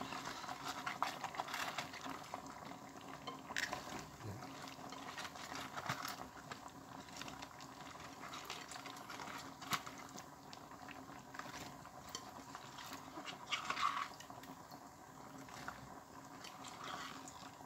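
Pot of broth simmering with faint bubbling, while vegetables are dropped in, giving a few short clicks and soft splashes.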